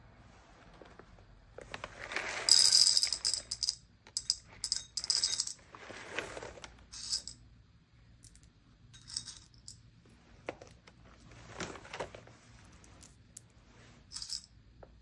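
Roasted coffee beans clattering into a small glass bowl on a scale. The main rattle of beans comes about two to three seconds in, followed by smaller pinches and single beans clinking in every second or two as the dose is topped up to about 10 grams.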